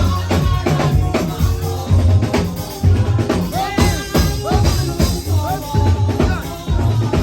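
Upbeat music with a drum-kit beat and bass, a strong low beat coming about once a second.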